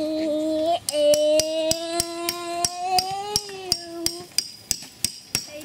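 Claw hammer driving a metal tent stake into the ground, about three blows a second, each with a short metallic ring. A voice sings one long held note over the blows.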